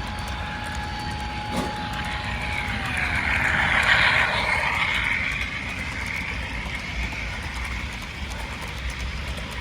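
A train passing. A steady tone drops in pitch about three seconds in, and a rushing rail noise swells to its loudest about four seconds in, then fades over a low rumble.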